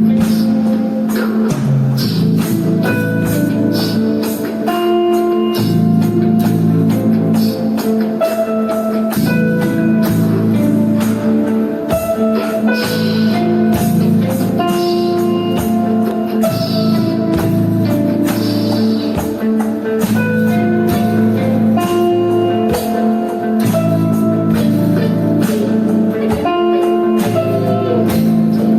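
Instrumental music with guitar and a steady percussion beat.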